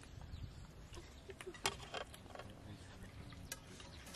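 A few faint, sharp clinks and scrapes of a serving spoon against a metal cooking pot and bowls as food is dished out.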